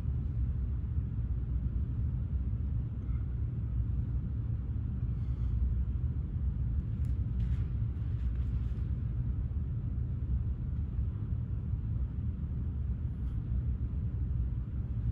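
Steady low rumble with no rise or fall, and a few faint soft scuffs about halfway through.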